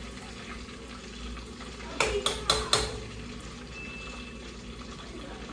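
Four quick metal clanks of a utensil knocking against cookware about two seconds in, each with a short ring, over the low hiss of fish frying in oil.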